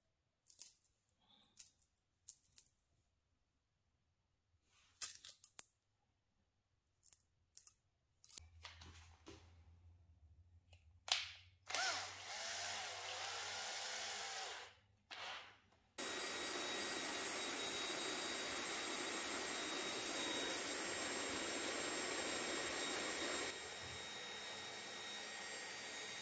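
Short clicks and knocks of parts and tools being handled, then a power tool, a drill or angle grinder, runs briefly, stops, and starts again about two thirds of the way in, running steadily on the stainless steel workpiece.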